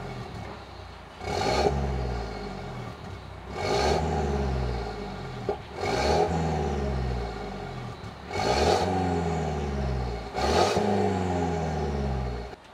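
Mercedes-Benz C250 (S205) with an M274 2.0-litre turbocharged four-cylinder, free-revved five times while stationary: each blip rises sharply and then falls back to idle. It breathes through a catless downpipe and a valved cat-back exhaust with the valves closed.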